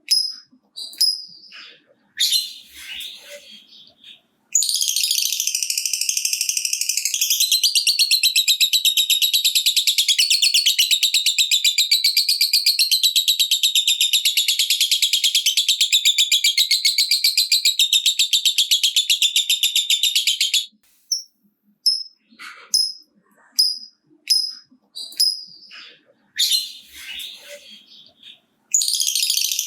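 Lovebird giving its long 'ngekek' chatter: a rapid, typing-like rattle of fast repeated high notes that runs unbroken for about sixteen seconds, set between bursts of short sharp chirps. A second long chatter starts near the end.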